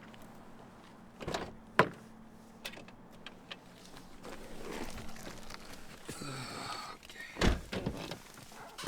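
Door and latch clicks, a sharp click about two seconds in, then a rattling stretch and a heavy car-door thump about seven and a half seconds in as the FR-S door shuts.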